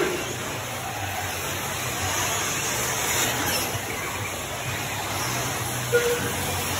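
Steady rushing noise of electric 1/8-scale RC truggies racing on an indoor dirt track, with a brief sharp sound about six seconds in.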